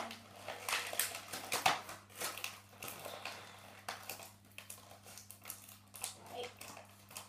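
Plastic wrapping and a clear plastic tray of a trading card box crinkling and crackling as they are pulled and torn at by hand, in irregular bursts, loudest in the first couple of seconds.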